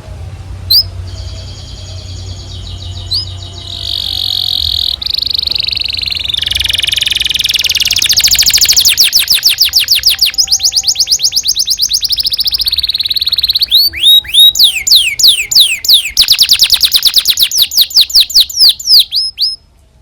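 Domestic canary singing a long song: two sharp chirps, then held whistled notes running into fast, dense trills, and in the second half a run of repeated downward-sweeping whistles that stops abruptly near the end.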